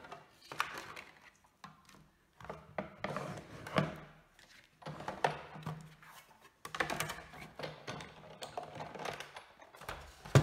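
Sizzix Big Shot die-cutting machine being hand-cranked, the cutting-plate sandwich with a Thinlits die pressed through its rollers in several spells of clicking and rattling, with short pauses between passes. A sharp knock at the very end.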